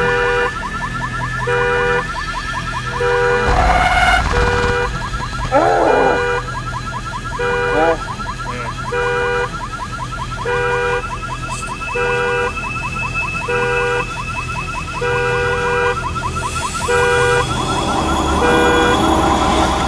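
Electronic two-tone siren, switching between a low and a high tone about every three-quarters of a second over a fast warbling pulse. Near the end a swell of rushing noise rises over it.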